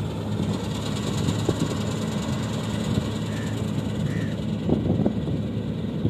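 Combine harvester running steadily as it cuts and threshes wheat: a continuous low engine drone with machinery noise over it. Two brief high chirps sound a little past three and four seconds in.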